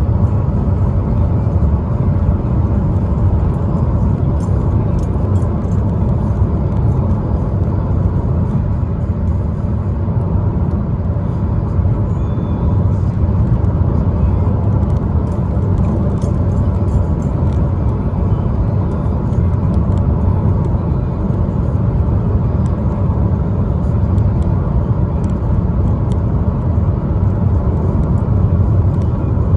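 Steady road and engine noise of a 2015 Chevrolet Cruze, heard from inside the cabin while it is being driven.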